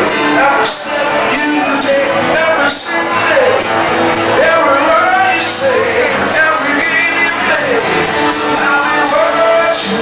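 Live solo performance: a man singing into a microphone while playing an acoustic guitar.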